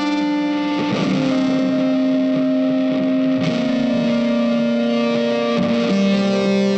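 Background music: sustained, effects-laden guitar notes, each held for a couple of seconds before moving to a new pitch.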